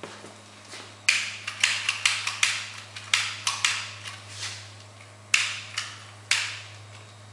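1883 Crown non-compression flame-ignition gas pumping engine being worked by hand with its handle but not yet running, as air is still being purged from the gas line. It gives about a dozen sharp mechanical clacks, each with a short hissing tail, in an uneven rhythm.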